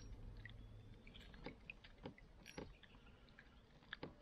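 Near silence, with a faint low hum for about the first second and a handful of faint, irregular ticks and small drips.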